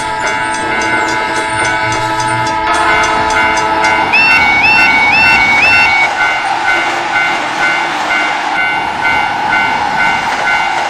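Railroad crossing warning bells ringing in fast repeating clangs, then in a steady rhythm of about two strokes a second. From about four seconds in a train passes with a rushing noise, and four short rising horn toots sound near the middle.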